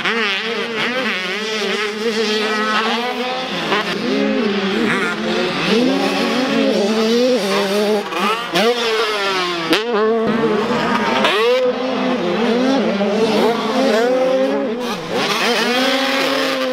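Several motocross dirt bikes racing, their engines revving hard and falling away over and over as the riders shift and corner, the pitches overlapping as bikes pass one another.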